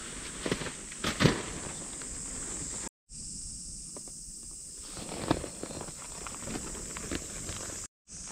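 Nylon tent fly sheet being pulled and handled, with footsteps on gravelly ground and a few sharp rustles and knocks about a second in and again a little past five seconds, over a steady high drone of insects. The sound cuts out briefly twice.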